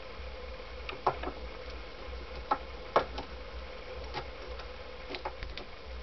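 A handful of light, irregularly spaced clicks and ticks as a thin steel piston ring is handled and worked into its groove on a Honda CX500 piston.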